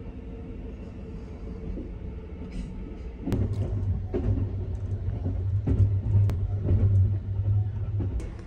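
Cabin rumble of the Sunrise Express, a 285 series electric sleeper train, running on the line, heard inside a sleeping compartment. About three seconds in it grows louder and deeper, with a series of sharp, irregular clicks from the wheels on the track.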